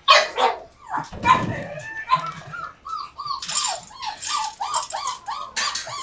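Puppies whimpering and yipping in a quick run of short, high cries, about three a second from about two seconds in. In between comes a rustling rattle of dry kibble being scooped up by the handful.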